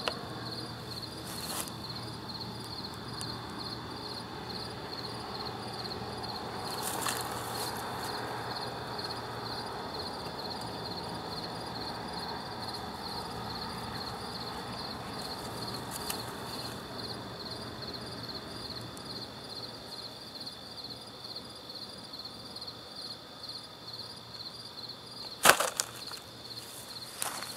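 Insects chirping steadily in a rapid, even, high-pitched pulse, with occasional rustles and knocks from handling a shot-up laptop target. A sharp knock near the end is the loudest sound.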